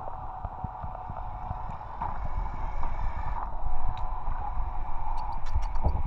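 Wind buffeting the microphone in low rumbles over a steady mechanical hum that shifts slightly about three seconds in.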